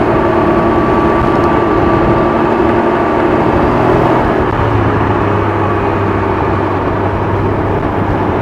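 Can-Am Ryker 900's three-cylinder engine running while riding at road speed, under a heavy rush of wind and road noise. About four seconds in its note slides lower and then holds steady.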